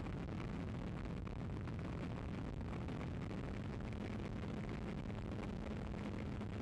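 Steady wind rush and electric motor and propeller noise on a small electric RC plane's onboard FPV audio, heard during a low pass. About four seconds in, a faint steady hum settles in as the throttle comes up.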